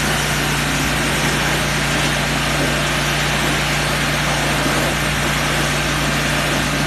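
Riding lawn mower's small gas engine running loudly at a steady, unchanging speed.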